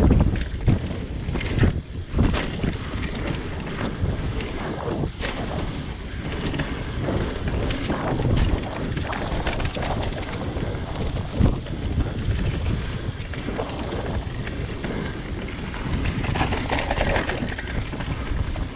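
Wind buffeting the microphone over tyre noise from a mountain bike descending a rough dirt trail, with frequent knocks and rattles as the bike hits bumps.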